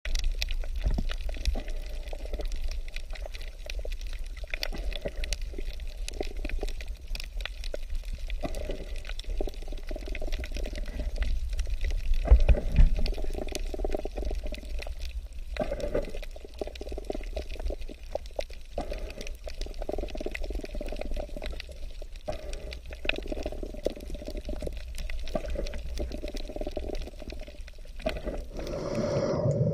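Water heard through an underwater camera: muffled sloshing and gurgling over a steady low rumble, with many scattered sharp clicks.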